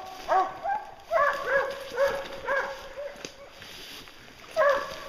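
Hunting hounds barking in a quick run of short, arching calls that fade over the first three seconds, followed by a pause and one more loud bark near the end.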